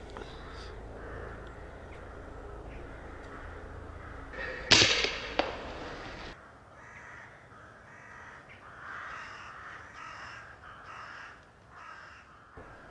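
Crows cawing repeatedly, with one sharp, loud crack of an air rifle shot about five seconds in, followed by a smaller knock.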